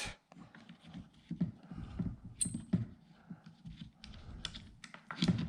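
Irregular light clicks and taps of hands handling a weapon light and its mount on an airsoft rifle, with a brief hiss about two and a half seconds in.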